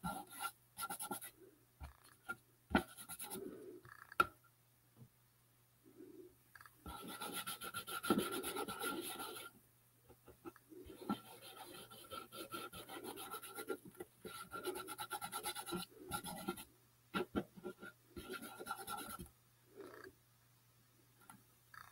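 Small paintbrush scrubbing over a painted cardboard box, dry-brushing paint on in stretches of a few seconds with short pauses and light taps between.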